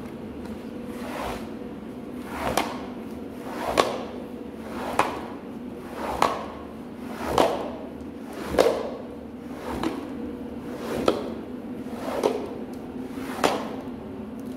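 Long-handled scrub brush working a soapy wet carpet in rhythmic strokes, about one every second and a quarter, each a swish through the foam ending in a sharp knock. A steady low hum runs underneath.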